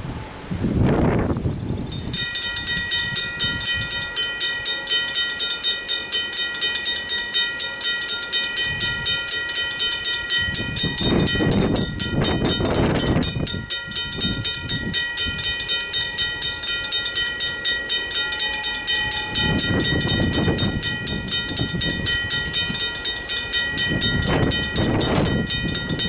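A Griswold mechanical level-crossing bell starts ringing about two seconds in and keeps ringing with rapid, even strokes, warning of an approaching train. Road vehicles pass several times, each swelling and fading under the bell.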